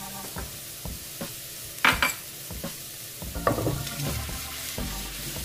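Minced garlic frying in a little oil in a nonstick frying pan, a light steady sizzle as it browns toward golden. There is a sharp clack of pan or utensil about two seconds in.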